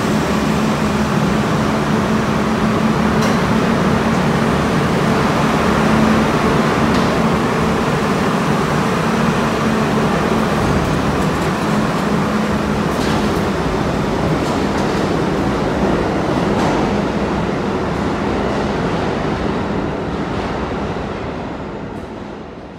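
R32 subway train running through the station, a steady rumble of wheels on rail with a low hum for the first half and a few sharp clicks over rail joints. The sound fades away near the end as the train leaves.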